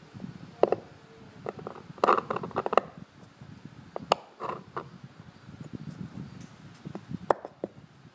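Steel seal-carving knife cutting into a soft Helan seal stone: short, irregular scraping and chipping strokes, with a quick run of strokes about two seconds in and single sharper cuts later.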